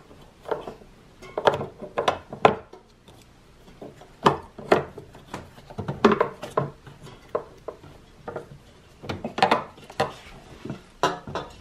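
Irregular plastic clicks, knocks and rubbing as an LED headlight bulb and its wiring are worked into the socket at the back of a headlight housing.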